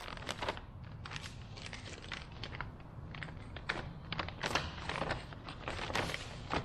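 Clear plastic zip bags crinkling and rustling as they are handled, with a string of irregular small crackles.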